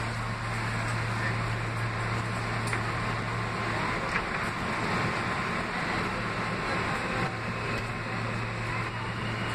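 Interior noise of an R160 subway car running on the line: a steady rumble and rush of wheels on rail, with a low hum that drops out for a few seconds midway and then returns.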